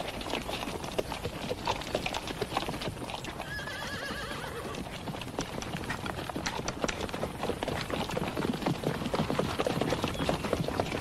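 Horses' hooves clip-clopping steadily as a mounted column moves over the ground, with a horse whinnying about four seconds in.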